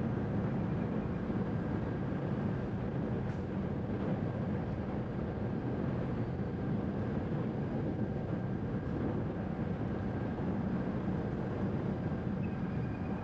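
Steady low rumble of a car driving along a city street: engine and tyre noise, even throughout.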